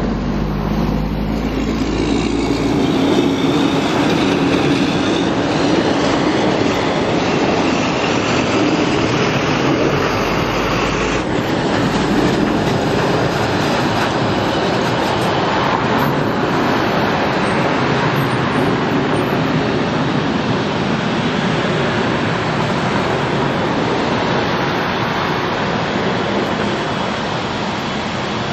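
Steady city street noise from passing traffic, a loud, even wash of sound with extra low rumble in the first few seconds and again about ten seconds in.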